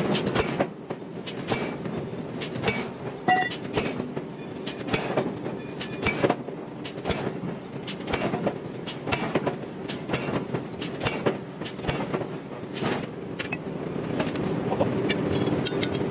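Heavy metalworking machinery running with a steady hum, over which metal clanks and knocks come at irregular intervals throughout.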